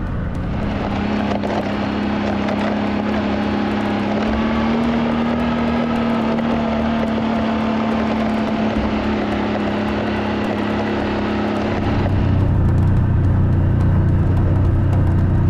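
Motor vehicle engine running steadily while driving. Its pitch rises slightly about four seconds in, and about twelve seconds in it changes to a deeper, duller hum.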